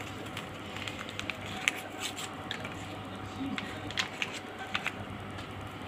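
Scattered light clicks and rustles of kitchen handling, a few at a time, over a faint steady low hum.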